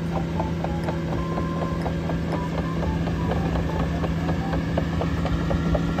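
Cat AP655F tracked asphalt paver driving slowly, its diesel engine running with a steady hum under a quick, irregular mechanical clicking and clanking.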